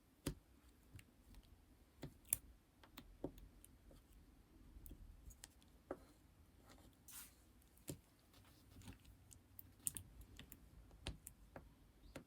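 Lipstick handled close to the microphone: irregular small clicks and taps, with a short scraping rustle about seven seconds in.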